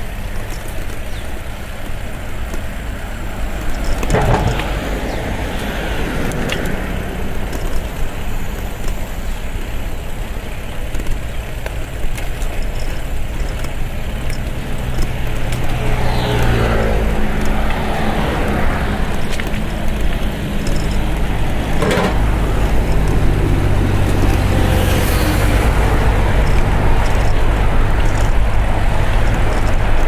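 Road traffic going by: a steady rumble of cars and trucks, with a heavier engine drone passing in the second half as the noise builds.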